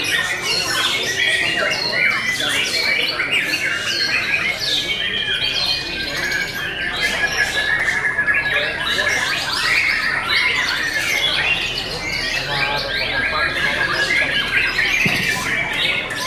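White-rumped shama (murai batu) singing a fast, varied song of whistles and rapid changing notes with hardly a pause, amid other songbirds.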